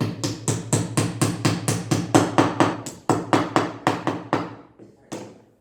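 Hammer blows in quick, even succession, about four a second, then a short pause and one last blow.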